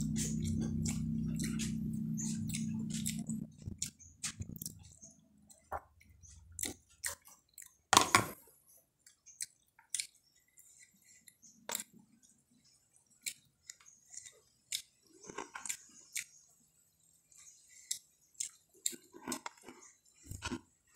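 Close-up chewing and crunching of food: irregular short crunches and clicks, one louder crunch about eight seconds in. A steady low hum is heard during the first three or four seconds, then stops.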